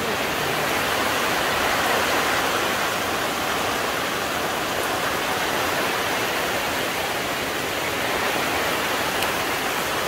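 Heavy rain pouring down in a steady, dense hiss.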